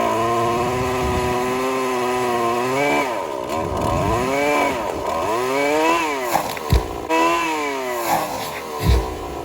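Two-stroke chainsaw at high revs, held steady for about three seconds, then its pitch repeatedly dropping and climbing again as the load on it changes. Two brief low thumps come near the end.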